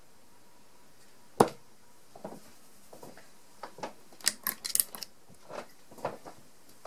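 A 25 g tungsten dart thudding into a bristle dartboard once, about a second and a half in. Then a run of small clicks and rustles as the darts are pulled out of the board, with sharp metallic clicks of the barrels knocking together in the hand near the middle.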